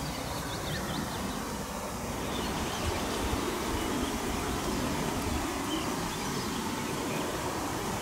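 Outdoor ambience: a steady, uneven low rumble of noise, with a few faint bird chirps near the start and again about halfway through.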